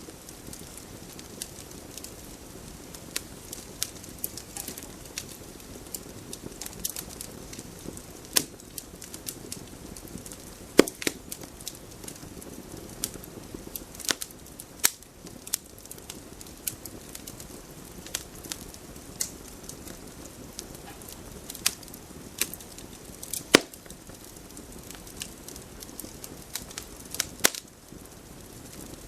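Wood campfire crackling: irregular sharp pops and snaps, a few much louder ones, over a steady low rush of burning.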